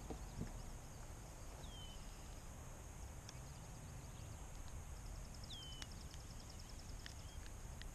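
Faint, steady outdoor background noise with a bird giving two short whistled calls that fall in pitch, a few seconds apart. A fast series of faint high ticks comes in the middle.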